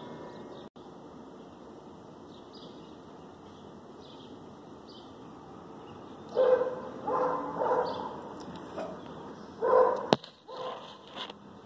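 A dog barking: a run of short barks over about four seconds, starting around the middle.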